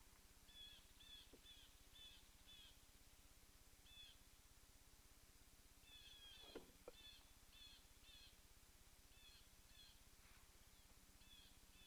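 Near silence over still water, with a faint bird calling: short high notes repeated a few times a second in short series. A brief soft sound, perhaps from the boat, about six and a half seconds in.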